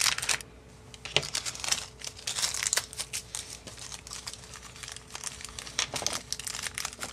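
Small plastic parts bag crinkling and rustling in the hands as it is handled and opened and the motor screws are taken out.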